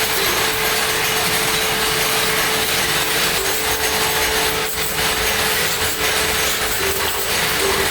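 Workshop machinery running steadily: a continuous noise with a steady mid-pitched hum.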